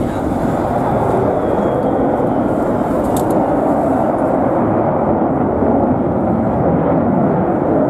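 Eurofighter Typhoon jet in flight, its twin Eurojet EJ200 turbofans giving loud, steady jet noise with most of its weight low down.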